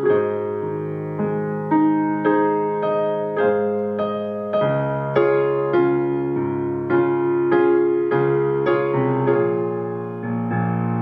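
Solo piano playing slow sustained chords, a new chord or note struck roughly every half second and ringing out between strikes.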